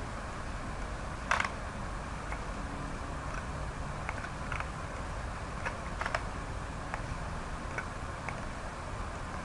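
Computer mouse clicking irregularly, about a dozen light clicks, the sharpest about a second and a half in, over a steady low background hum.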